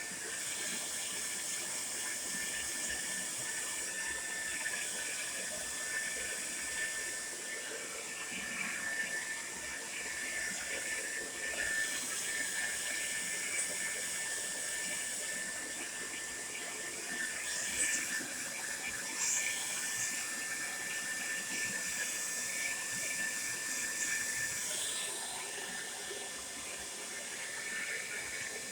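Tresemme Salon Smooth Professional hair dryer running steadily: an even rush of blown air with a thin, steady high whine from the motor.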